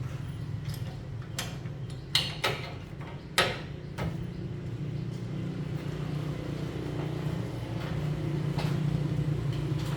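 A handful of sharp knocks over a steady low hum. They bunch together in the first four seconds, the loudest a little over three seconds in, with one fainter knock near the end.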